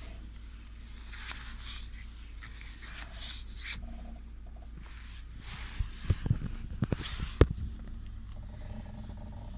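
Lada Vesta's anti-roll bar rubber bushings creaking and groaning in two drawn-out spells, with a cluster of sharp knocks about six to seven and a half seconds in, over a low steady hum. The squeak persists in wet weather despite the newer vulcanized bushings.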